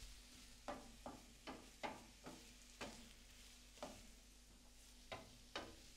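Wooden spatula knocking and scraping in a frying pan as chicken, peppers, onions and garlic are stirred, about ten short, irregular knocks over a faint sizzle of the food frying.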